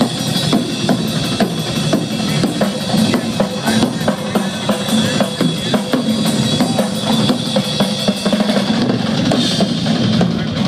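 Live metal drum kit played fast and hard: a dense run of bass drum and snare hits with cymbals, heard through a phone's microphone from the audience.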